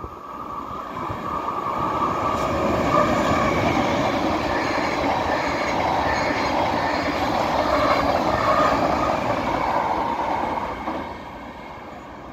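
A Belgian double-deck electric passenger train passing on a nearby track. The rumble of its wheels on the rails builds over the first two seconds, holds, then falls away about eleven seconds in as the train goes by.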